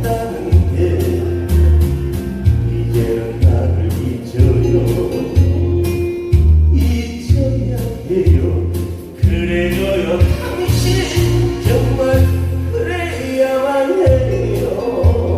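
Amplified live song: a singer over a band or backing track with a steady beat and heavy bass. The voice is strongest from about ten seconds in.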